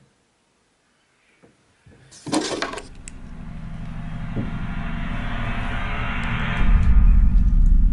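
An engine starts with a short rough burst about two seconds in, then runs steadily, growing gradually louder, with a heavier low rumble coming in near the end.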